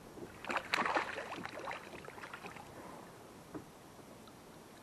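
A small hooked bass splashing at the surface as it is reeled to the kayak's side: a burst of splashing about half a second in, lasting about a second, over choppy water lapping against the hull.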